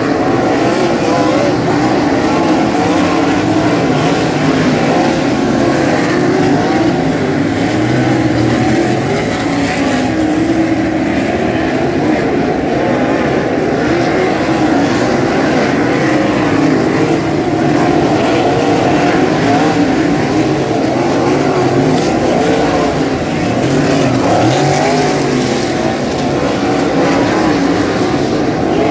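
A pack of 360 sprint cars racing, their V8 engines running loud and continuous together, the pitch rising and falling as cars accelerate and lift through the turns.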